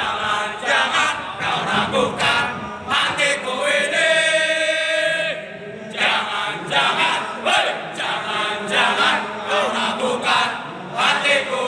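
A group of men chanting a rhythmic motivational cheer (yel-yel) in unison, with one long held note about four seconds in.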